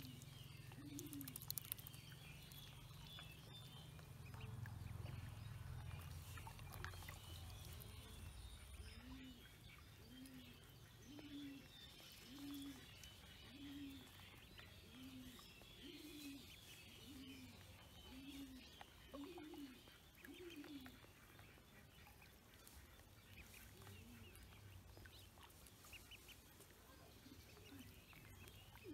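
Pekin ducklings peeping, a faint constant chatter of many high chirps. For a stretch in the middle, another bird gives a series of low, evenly spaced calls about one a second.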